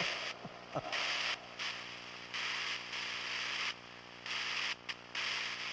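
Horror-teaser sound design: a low, steady drone with blocks of static-like hiss that cut in and out abruptly. Two quick falling sweeps come in the first second.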